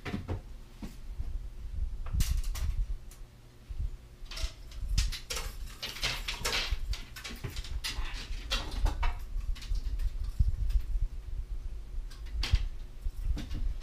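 Handling noise: irregular rustling and scraping with scattered knocks as fishing rods and a tackle backpack are moved about and fitted together.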